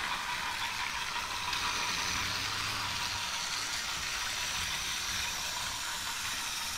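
Battery-powered TOMY Trackmaster toy trains running on plastic track: a steady whir of their small electric motors and gears, with the rattle of wheels on the track.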